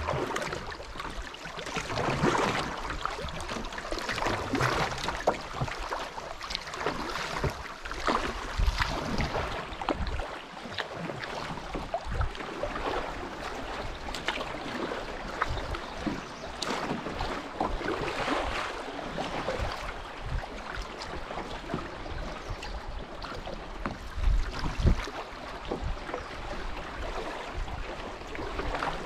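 River water rushing and splashing around a canoe running down a shallow riffle, swelling every couple of seconds.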